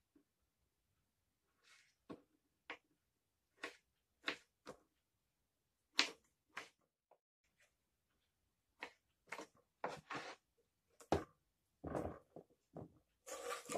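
Kitchen knife cutting through peeled kiwi and tapping on a wooden cutting board: single sharp knocks at irregular intervals, coming faster later on. Near the end the kiwi pieces are slid off the board into a plastic tupperware with a short clattering rustle.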